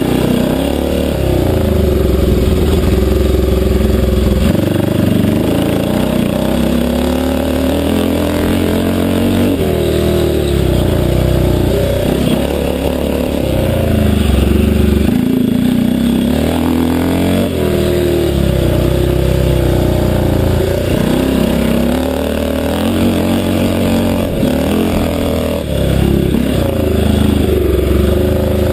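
Engine of a 500cc classic motocross bike, heard from a camera on the bike, revving up and down again and again as the rider opens and closes the throttle and changes gear.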